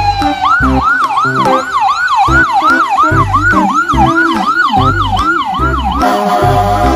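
Electronic ambulance siren yelping in rapid up-and-down sweeps, about three a second, stopping about six seconds in. It plays over background music with a thumping bass beat.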